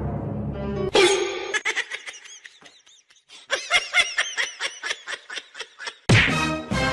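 A person laughing in a run of short, quick bursts, then an abrupt cut to music near the end.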